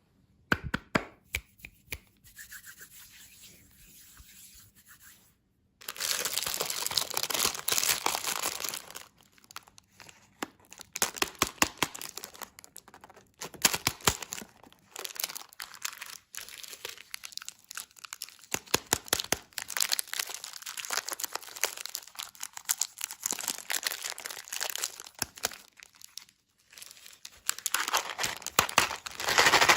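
Close-miked crinkling and tearing of candy packaging, in irregular bursts of dense crackling with short pauses between them.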